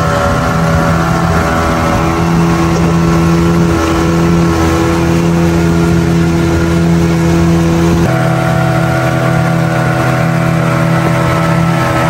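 Boat's outboard motor running steadily at cruising speed, a loud, even engine note over rushing noise. The pitch pattern of the engine changes abruptly about eight seconds in, as the throttle is shifted.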